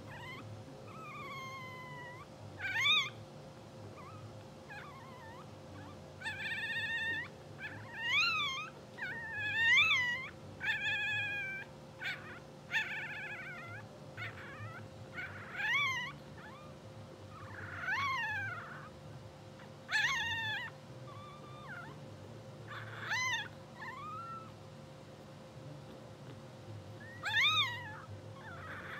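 Newborn English bulldog puppies squeaking and mewling in their sleep. There is a string of about fifteen short, high calls that rise and fall in pitch, some in quick pairs, over a steady low hum.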